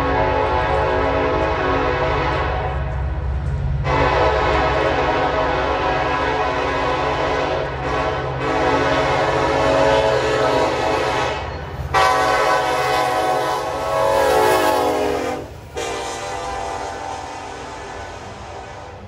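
Diesel freight locomotive's air horn sounding a chord in four long blasts with short breaks between them, over the steady rumble of the diesel engines. The last blast is the loudest; after it stops, only the engine rumble is left, fading away.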